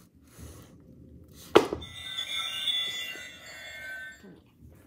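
A sharp thump about one and a half seconds in, then a plush walking-and-dancing llama toy playing a short electronic tune from its speaker for about two seconds.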